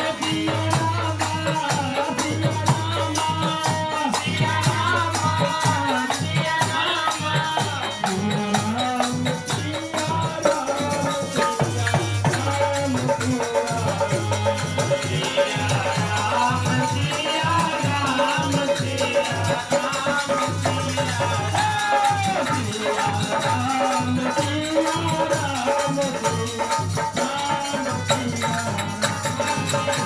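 Devotional kirtan music: a man singing into a microphone over a harmonium, with a wooden kartal clapper and its metal jingles rattling out a steady, driving beat.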